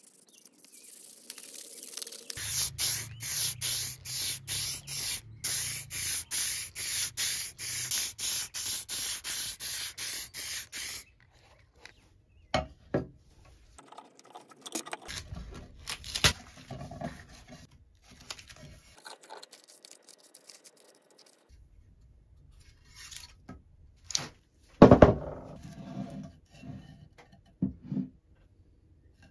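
Sapper shovel's metal blade rubbed back and forth by hand in a steady rhythm of about two strokes a second for some eight seconds. This is followed by quieter scattered scrapes and clicks of handling, with one loud knock about 25 seconds in.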